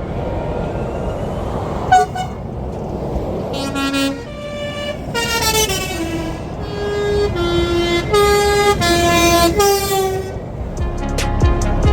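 Truck horn sounded over the noise of passing motorway traffic. A short toot comes about two seconds in, then a longer blast, then a rhythmic run of horn notes that alternate between a higher and a lower pitch for about five seconds.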